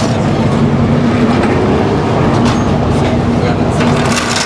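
Super late model race car V8 engines running loudly and steadily, with a constant droning note.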